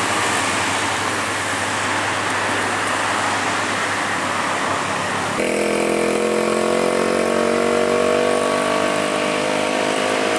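Uphill traffic, a diesel dump truck's engine among cars and motorcycles, as a steady rumble of noise. About halfway through it switches to a single Hino diesel dump truck, loaded with split stone, labouring up the climb with a steady droning engine note that sags slightly.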